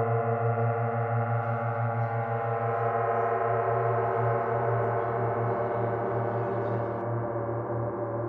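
Ambient background music: a sustained, gong-like drone of many held ringing tones over a low hum that pulses steadily.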